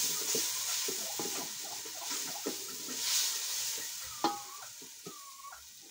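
Onions, tomatoes and sweet pepper sizzling in a metal pot while a wooden spoon stirs them, the sizzle swelling with the strokes and dying down toward the end. A single sharp knock with a short ring about four seconds in.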